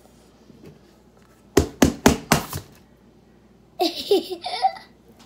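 Four quick, sharp knocks about a second and a half in, then a little girl's laugh for about a second near the end.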